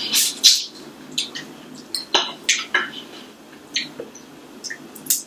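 Close-miked eating sounds: irregular short wet smacks, clicks and crunches as a shell-on shrimp is chewed and handled by hand.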